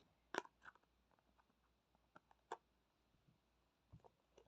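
Faint, scattered clicks and taps of handling, about half a dozen sharp ones, the loudest about half a second in.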